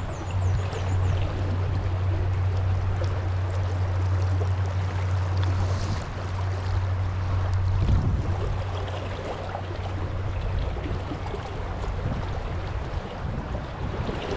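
Fast river water rushing steadily, with a low rumble that fades about eight seconds in.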